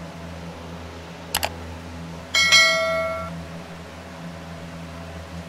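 Subscribe-button animation sound effect: a quick double mouse click about a second in, then a bright notification-bell ding that rings out for about a second. A steady low hum runs underneath.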